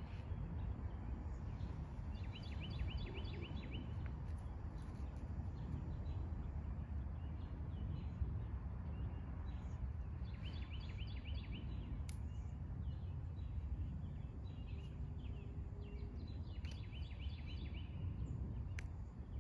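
Songbird singing in three short phrases, each a quick run of repeated high notes, about two, ten and seventeen seconds in, with a few faint chirps between, over a steady low outdoor rumble.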